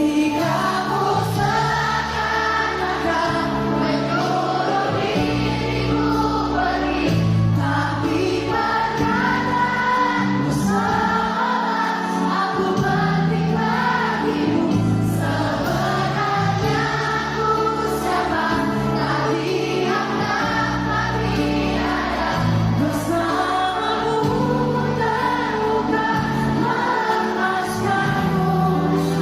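Music: a group of voices singing together over a bass line.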